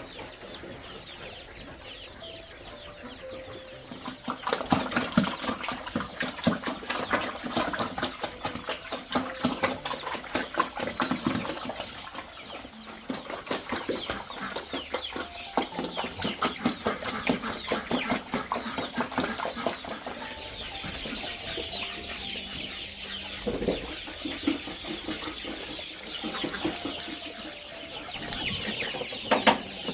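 Chickens clucking, with a dense run of rapid clicking and rustling from about four seconds in that eases after twenty seconds.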